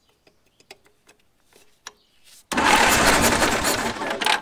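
A Caterpillar pony motor, the small two-cylinder gasoline starting engine, is cranked over with its spark plugs out for a spark test. After a few faint ticks it turns over steadily and loudly for about two seconds, starting suddenly and stopping just before the end.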